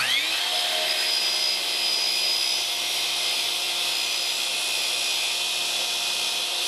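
Compound sliding miter saw switched on: its motor whine rises as it spins up in the first half second, then runs at a steady high pitch.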